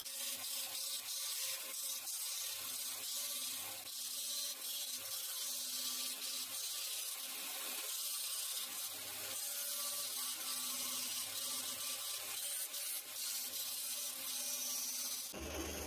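Belt sander running with wood being ground against its abrasive belt, shaping a wooden knife-handle scale: a steady gritty hiss over an even motor hum, changing to a lower hum about fifteen seconds in.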